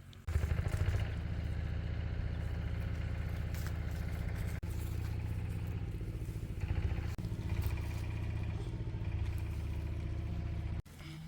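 An engine running steadily, with brief rises around one second and seven seconds in; it starts and cuts off abruptly.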